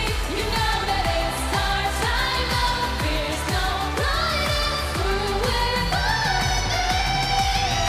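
K-pop song with women's singing over a steady pop beat whose bass notes repeatedly slide downward.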